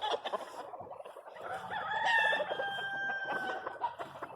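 A gamefowl rooster crowing once, one long crow starting about a second and a half in, with other chickens clucking around it.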